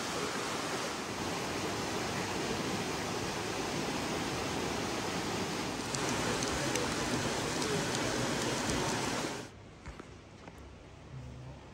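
Steady rush of a mountain river flowing under the town's bridges, an even roar of water that stops abruptly about three-quarters of the way through, leaving a quiet room with a faint low hum.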